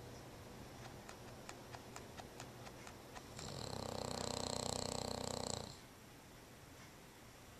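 Sleeping bulldog snoring: a run of faint ticks for the first few seconds, then one loud, buzzy snore about three and a half seconds in that lasts a little over two seconds.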